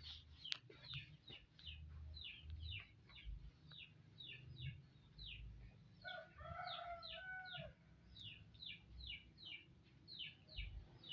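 Faint bird chirping: quick, short, falling chirps, several a second. About six seconds in, a rooster crows once.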